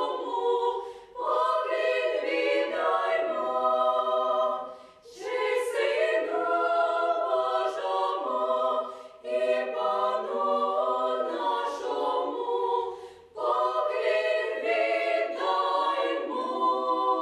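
Female vocal ensemble singing a Ukrainian Christmas carol a cappella in close harmony, in long phrases with short breaks between them.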